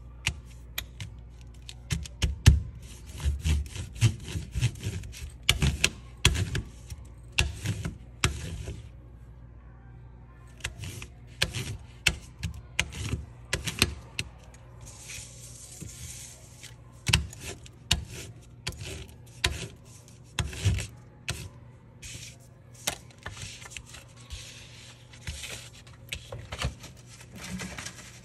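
Crayon rubbed hard back and forth over paper laid on a ridged plastic texture plate: a run of scratchy strokes with sharp knocks, pausing briefly about a third of the way in.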